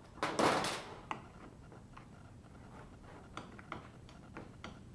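Screwdriver tip working against the aluminium plate of a gas water heater control valve, prying at a riveted-in part: a short noisy burst just after the start, then a scatter of small metal clicks and ticks.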